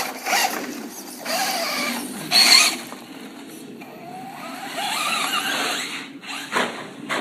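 RC car motor whining and revving in bursts, rising and falling in pitch, with the car scuffing over the ground. The longest run is about four to six seconds in.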